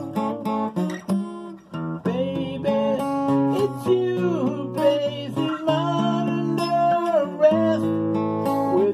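Steel-string acoustic guitar strummed in chords, with a man's voice coming in about two seconds in and singing long held, gliding notes over it.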